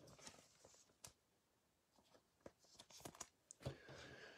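Near silence with a few faint clicks and rustles of trading cards and packaging being handled.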